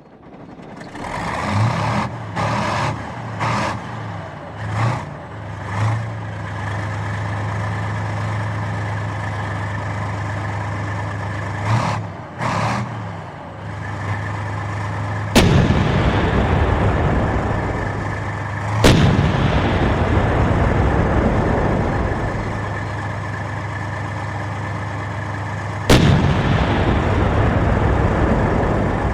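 Heavy tank engine fading in and revving in a series of short bursts, then running in a steady low drone. In the second half come three loud cannon shots, each trailing off in a long rumble.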